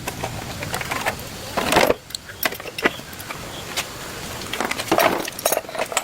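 Metal tools and small scooter parts clinking and clattering during hand work on the motorbike, with louder clanks just before two seconds in and again about five seconds in.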